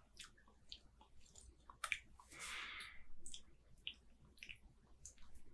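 Faint mouth sounds of a man tasting beer: scattered lip smacks and tongue clicks, with one short breathy draw of air about two and a half seconds in.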